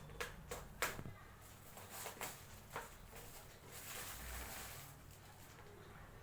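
Plastic wrapping being torn and crinkled off a book: a run of sharp crackles in the first three seconds, then a longer rustle about four seconds in.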